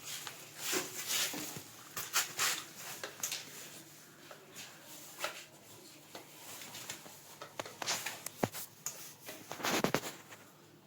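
Hands working uPVC pipe and fittings: irregular clicks, taps and short scrapes, with a longer scrape near the end.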